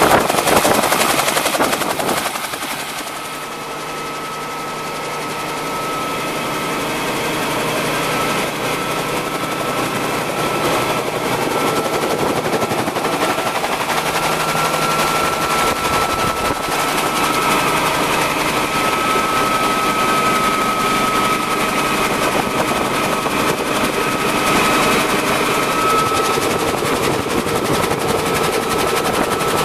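Bell 47 helicopter's piston engine and main rotor running with a rapid, steady chopping beat and a constant whine. After a dip a few seconds in, it grows louder over several seconds as the helicopter takes off and climbs, then holds steady, heard from on board.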